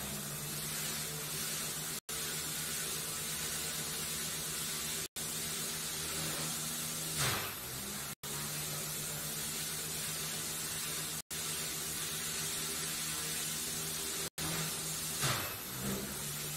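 Propellers of a variable-pitch rotor pendulum spinning: a steady motor whir under a heavy rush of air. Twice there is a brief louder whoosh as the hum dips and recovers. The sound cuts out for an instant about every three seconds.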